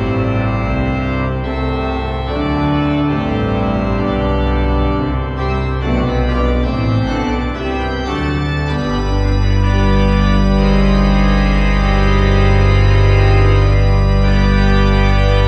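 Sampled pipe organ (the St Mary-le-Bow sample set) played on manuals and pedals: a lively passage of quickly changing chords, then from about nine seconds in a loud full chord held over a deep pedal bass, its upper notes shifting twice.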